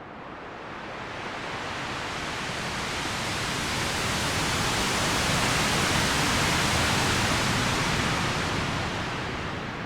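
Synthesized ocean wave: filtered noise from a VCV Rack noise generator swelling slowly in loudness and brightness, peaking just past the middle, then ebbing away like a wave breaking on the shore and drawing back.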